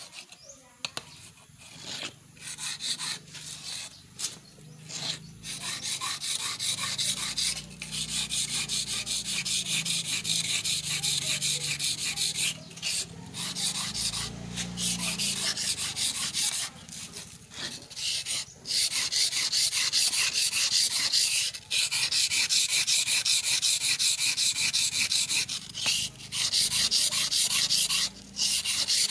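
Electric planer blade rubbed back and forth by hand on a wet sharpening stone: fast, gritty scraping strokes of steel on stone. They come in short bursts for the first few seconds, then run almost without a break, with a few brief pauses.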